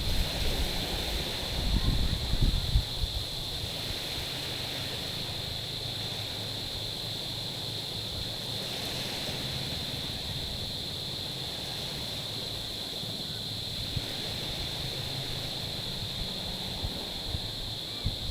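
Small waves washing over a stony shore. Buffeting wind rumbles on the microphone in the first few seconds, then eases to a steady wash. A steady high-pitched whine sits over it throughout.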